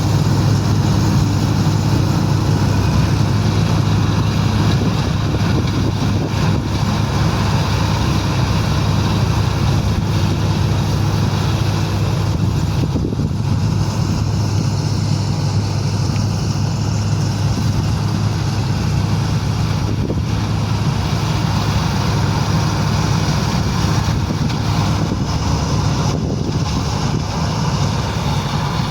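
Mahindra Arjun Novo 605 tractor's diesel engine running steadily under load while harvesting wheat: a constant low drone with machinery noise over it.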